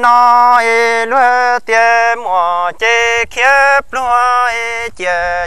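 Hmong kwv txhiaj sung poetry: a single unaccompanied voice singing a string of short held notes, each broken off with a brief wavering bend in pitch.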